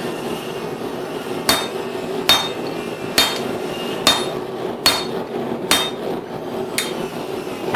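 Blacksmith's hammer striking hot steel on the anvil's hot cut tool, cutting off the spoon stock: seven ringing blows about a second apart.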